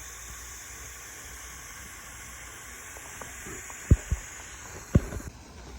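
Steady background hiss, with three short low thumps about four and five seconds in.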